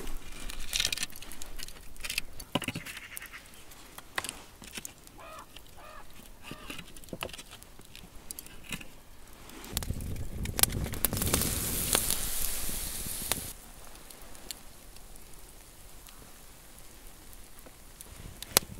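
Campfire of dry twigs and sticks crackling as it catches, with wooden sticks clicking and knocking as they are laid over it. About ten seconds in, a rushing noise rises for three or four seconds, then drops away.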